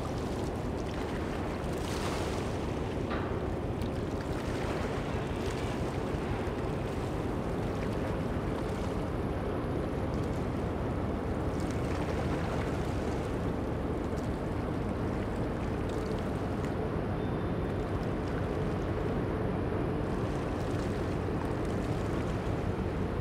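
Steady low rumble of a ship's engines across the water, with a faint constant hum through it and wind on the microphone.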